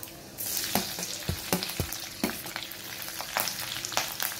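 Chopped green chillies going into hot oil with frying garlic in an aluminium kadhai: the sizzle jumps suddenly louder about half a second in and keeps crackling. A few sharp knocks of the spoon against the pan come through as it is stirred.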